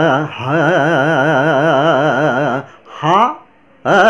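A man's singing voice holding long notes with a fast, even vibrato, briefly broken just after the start, then a quick upward slide about three seconds in and a new held note at the very end. It is his vocal vibration exercise, blending 'aa' with 'ha'.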